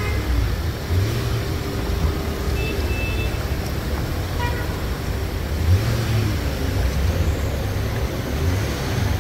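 Road traffic on a flooded highway: a steady low rumble of vehicle engines and tyres running through standing floodwater.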